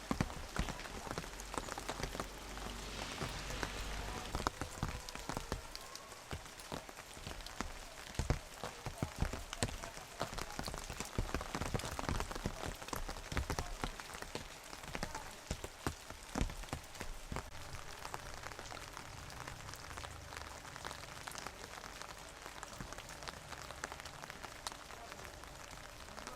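Steady rain falling, many separate drops striking a hard surface.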